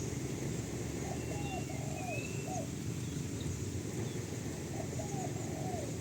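A dove cooing: a phrase of about four low coos, repeated about four seconds later, with a few faint chirps from smaller birds over a steady low background rush.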